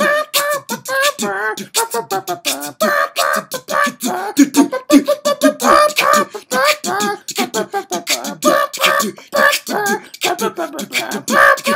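Vocal music made by a voice: quick percussive mouth sounds, several a second, mixed with sung tones that slide up and down in pitch, in the manner of beatboxing.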